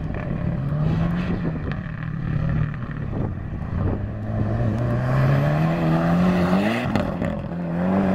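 Rally car engine revving hard under acceleration on a gravel stage. Its pitch climbs steadily and drops suddenly twice at gear changes.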